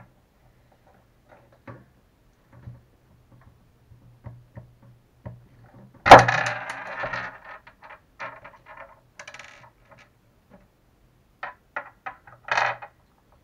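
Small metal tools and RC shock-absorber parts clicking and tapping on a work table during hand assembly. About six seconds in comes one loud clatter that rings briefly, and near the end a quick run of clicks.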